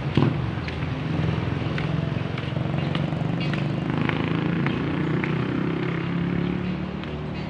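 City street traffic: the steady hum of vehicle engines running by, with a short knock just after the start and a few faint clicks.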